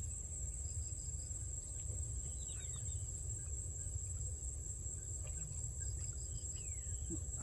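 Crickets trilling in one steady high-pitched drone over a low rumble, with a few faint short falling chirps.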